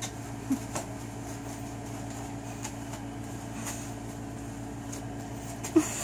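Steady mechanical hum of a room appliance such as an air conditioner, with a few brief soft noises as a golden retriever moves about on a mattress; the loudest comes near the end.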